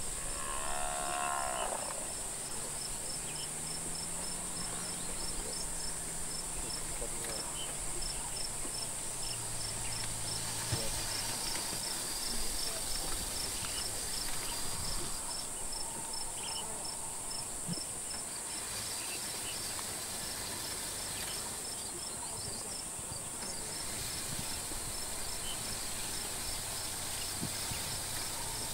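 Steady high buzzing of insects in the bush, with one insect chirping regularly about three times a second. A low drawn-out sound runs from about four to eleven seconds in.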